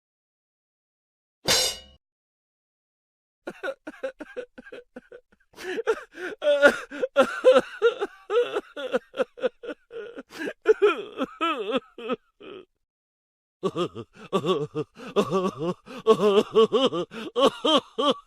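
A short, sharp noise, then a person's voice laughing in rapid, repeated bursts for most of the rest, pausing briefly near the end before going on: a comedy laughter sound effect.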